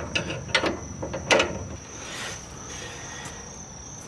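Drum brake star-wheel adjuster on a 1965 Ford Falcon's front wheel clicking as it is turned with a tool, with several sharp clicks in the first second and a half, setting the shoe clearance. Crickets chirp steadily in the background.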